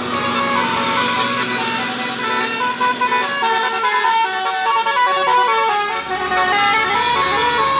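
Bus telolet horn, a Basuri multi-tone musical air horn, playing a quick tune of short notes stepping up and down in pitch. A low rumble joins underneath about six seconds in.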